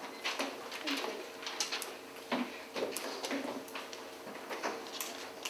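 Room noise: scattered rustles, light clicks and knocks over a steady faint hum, with faint murmured talk.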